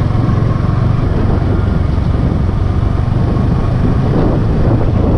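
Yamaha motorcycle being ridden steadily in fourth gear at around 30 km/h, its engine and a heavy low wind rumble on the microphone running together as it slowly gains speed.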